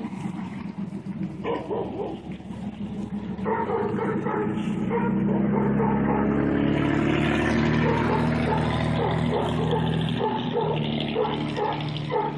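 A dog making short repeated vocal sounds, a couple a second, while tugging at a ball on a rope. A steady low engine hum from a vehicle rises about a third of the way in and is the loudest sound in the middle.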